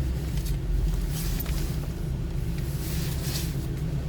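Steady low rumble of a car.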